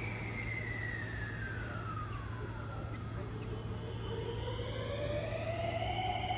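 Electric train standing at a platform, a JR 223-series Marine Liner: a steady electrical hum, with a whining tone that glides down over the first two seconds or so and then slowly rises again.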